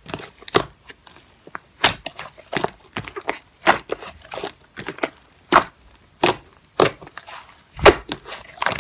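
Slime being pressed and worked by hand, giving off an irregular series of sharp clicking pops and crackles, roughly two a second.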